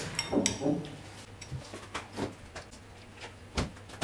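Eating at the table: a handful of short clicks and knocks from chewing and metal spoons against dishes, the sharpest knock about three and a half seconds in. A brief faint voice comes at the start.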